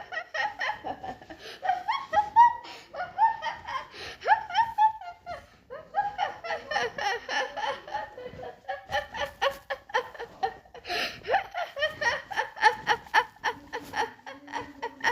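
A woman laughing heartily in high-pitched, rapid repeated "ha" bursts. There is a brief pause about five and a half seconds in, after which the laughter runs on in a faster string of bursts.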